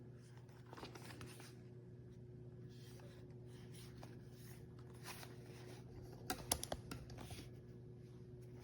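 Faint handling noises, light scratching and clicks, over a steady low hum, with a sharper cluster of clicks about six and a half seconds in.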